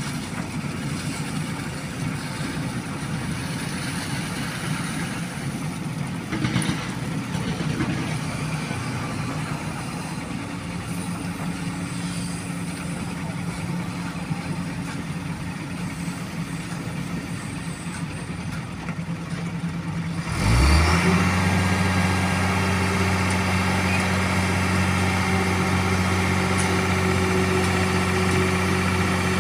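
Diesel engines of a Sany excavator and a concrete mixer truck running at a concrete pour. About twenty seconds in, one engine revs up sharply and holds a louder, steady high-rev drone to the end.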